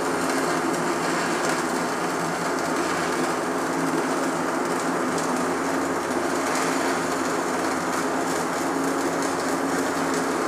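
Stick-welding arc from a Tweco Fabricator 141i running a bead on scrap steel: a steady, unbroken frying crackle with a low hum underneath.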